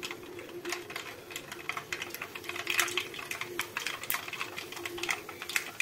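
Mustard seeds spluttering in hot sesame oil in a kadai: a run of irregular sharp pops and crackles, sparse at first and thickening after about two seconds as the seeds burst.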